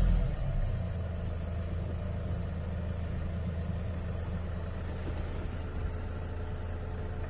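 Hyundai Porter II 1-ton truck's four-cylinder diesel engine dropping back from a rev during the first second, then idling steadily, heard from inside the cab.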